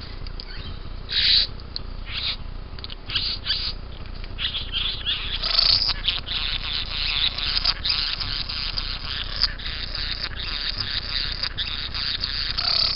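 Young satin bowerbird calling at its bower. It gives short, separate harsh calls at first, and from about four seconds in a continuous buzzing, rasping chatter, the display song given with raised wings.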